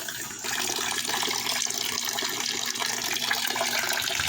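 Running water pouring steadily, growing louder about half a second in.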